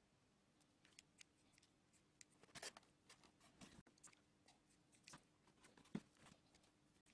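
Near silence with faint scattered clicks and light taps: hands handling small foam and plastic model parts on a workbench, with one brief rustle partway through and a single tap near the end.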